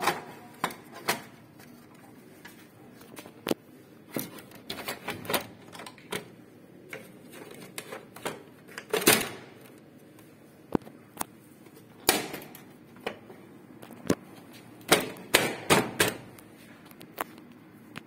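Plastic casing parts of a laser printer being handled and fitted, making irregular sharp clicks and knocks. The loudest knocks come about halfway through and in a quick cluster near the end.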